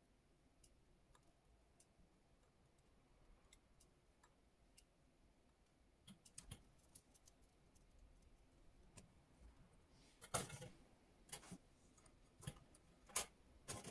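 Small metallic clicks of brass tweezers picking up tiny watch screws and dropping them into a wire mesh strainer, then several louder metal clinks in the last few seconds as the mesh strainer is handled in a wire cleaning basket.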